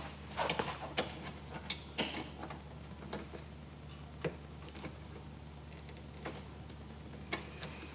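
Scattered light metallic clicks and taps of a hand tool working the bolt of a motorcycle footpeg as it is snugged down, a few irregular clicks over a low steady hum.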